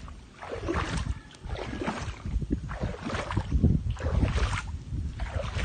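Seawater sloshing and splashing in irregular surges, with a low wind rumble on the microphone.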